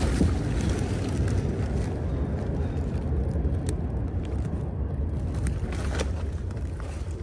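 Steady low rumble of noise on a body-worn microphone while a plastic crate is carried, with a few faint clicks.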